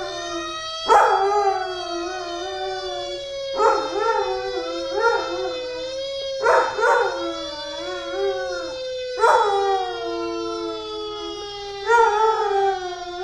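Lab/Chow mix dog howling: about five long, wavering howls, each starting roughly every two to three seconds. Beneath them a fire truck siren wails slowly up and down, and it is the siren that sets the dog howling.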